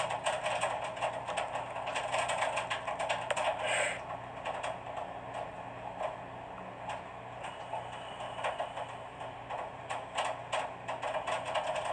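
Rapid irregular clicking and clattering over a steady hiss and low hum, a little quieter after about four seconds in.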